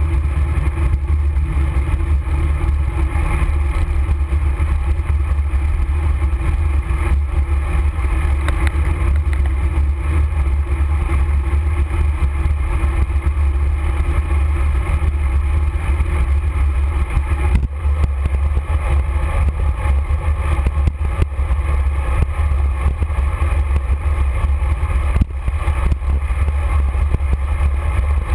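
Steady wind buffeting on a bicycle-mounted camera's microphone, with a low rumble of tyres on asphalt while the bike rides along at speed.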